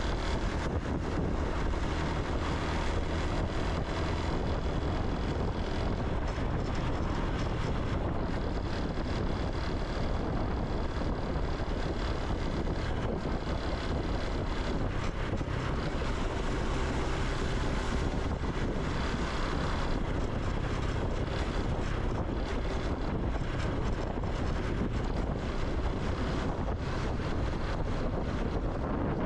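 Honda Super Cub C125's 125cc single-cylinder engine and exhaust running steadily as the bike is ridden, with wind buffeting the microphone.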